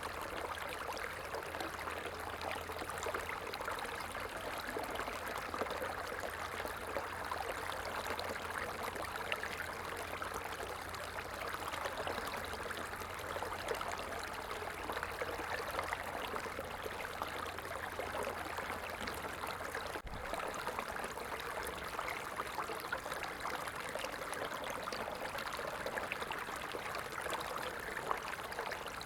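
Running water flowing steadily, an even rushing and trickling like a small stream. A faint low hum underneath stops about two-thirds of the way through.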